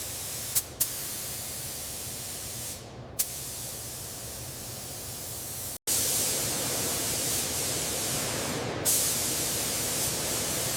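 Steady hiss of an air paint spray gun. It breaks off abruptly a little past halfway and comes back louder and brighter.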